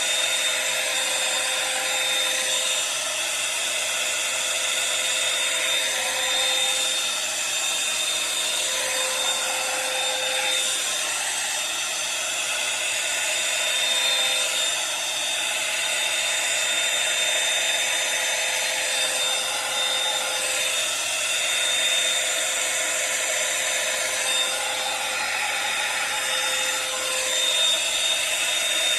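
Revlon One-Step hair dryer brush running continuously: a steady rush of blown air with a constant motor whine.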